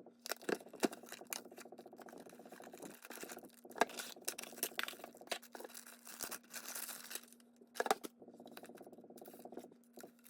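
Handling sounds of a small gadget and its packaging: scattered sharp clicks and knocks with patches of rustling, over a steady low hum.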